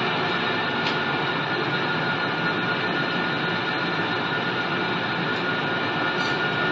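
Wood pellet production machinery running steadily: a dense, even mechanical noise with a constant high whine over it.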